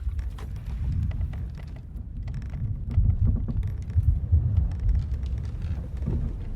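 Deep rumble of wind and sea around a ship, swelling and easing several times, loudest around the middle, with faint creaks and knocks from the ship's timbers.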